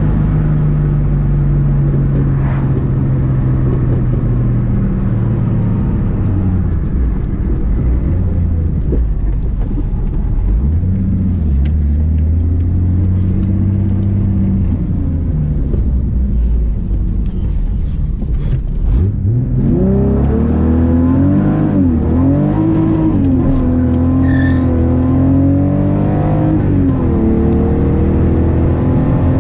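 VW Golf Mk2's VR6 engine and exhaust, heard from inside the cabin. The engine note falls as the car slows for a turn. About two-thirds of the way in it revs up hard, dipping briefly at a couple of gear changes, then settles into a steadier cruise.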